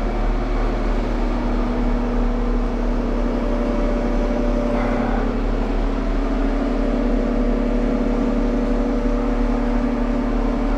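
Engine running steadily with an even, unchanging drone.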